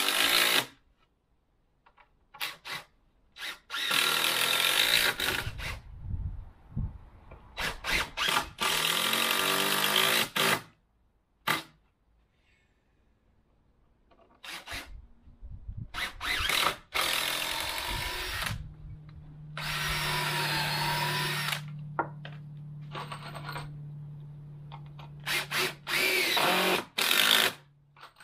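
Cordless drill run against timber in a series of short bursts of a few seconds each, the motor whine rising and falling, with quiet pauses between. A steady low hum comes in about two-thirds of the way through.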